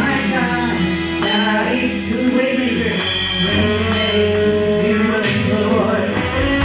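Live worship band music with singing: a voice holds long, steady notes over the band's accompaniment.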